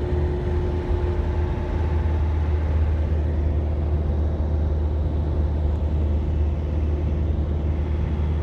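An engine running steadily with a deep, even rumble; a faint higher whine fades out about a second in.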